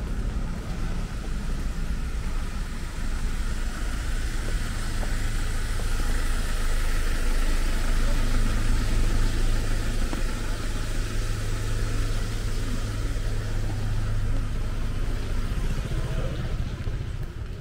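Rainy street ambience: a steady hiss of rain with a motor vehicle's engine running nearby as a steady low hum. The hum grows louder toward the middle and fades again near the end.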